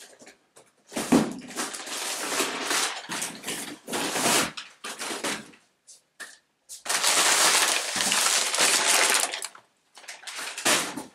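Large cardboard shipping box being handled and moved away, with scraping, rustling and crumpling cardboard in two long stretches.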